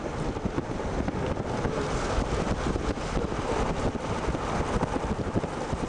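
Wind buffeting the microphone over the low rumble of a moving vehicle, a dense, unbroken noise with constant low-end fluttering.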